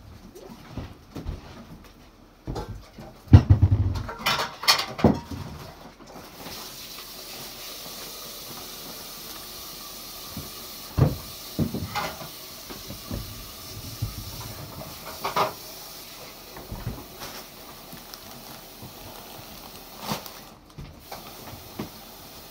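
A few knocks and thumps, the loudest about three seconds in, then a steady hiss that starts abruptly about six seconds in and cuts off near the end.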